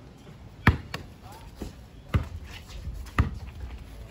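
A basketball being dribbled on a concrete driveway: a run of sharp bounces, roughly one every half second to a second, some much harder than others.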